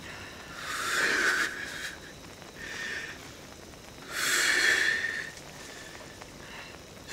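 Breathy exhales of satisfaction after swallows of cold beer, three times: two long, loud sighs with a shorter, softer one between them.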